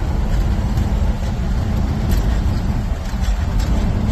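1969 Dodge A100-series van being driven, its engine and road noise making a steady low rumble.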